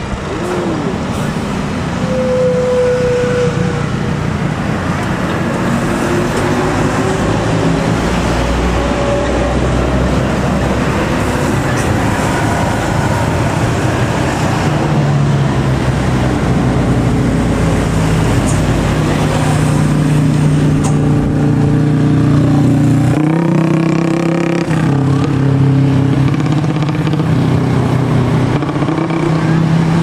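Buses and cars passing on the road, their engines running continuously, with a low engine drone that grows stronger from about halfway through. A short tone sounds a couple of seconds in.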